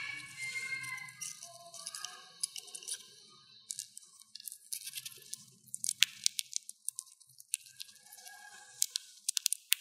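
Dwarf hamster cracking sunflower seed shells with its teeth and nibbling the kernels: a run of small, sharp, crisp crunches and clicks, thicker and louder from about four seconds in.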